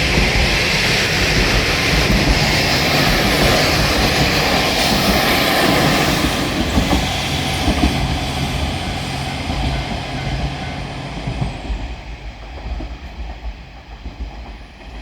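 Two-car KiHa 47 diesel railcar train passing close by: wheels clacking over the rail joints and diesel engines running. The noise dies away over the last few seconds as the train recedes.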